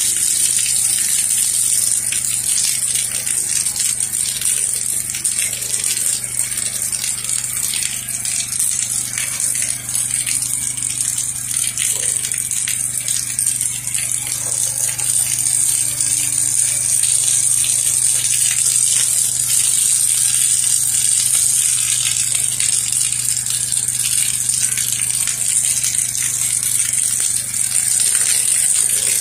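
Pressure-washing rig spraying water from a wand onto a house: a steady hiss of spray over the continuous low hum of the machine's engine and pump.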